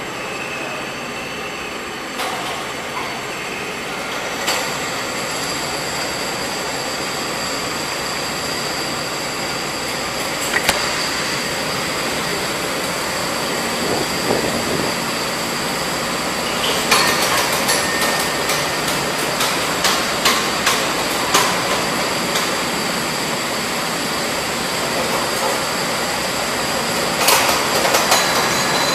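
Rental go-karts running on an indoor concrete track: a steady drive noise with a thin, high, steady whine over it. Scattered sharp knocks and rattles come in from about halfway and again near the end.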